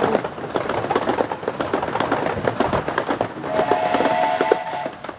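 Miniature steam locomotive sounding its whistle, a steady two-tone note lasting about a second and a half near the end, as a warning at the whistle board before a tunnel. Throughout there is a rapid clatter of clicks from the passenger train running along the track.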